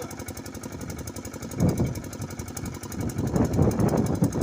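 An engine running steadily with a fast, even beat, growing louder for a moment about one and a half seconds in and again for about a second near the end.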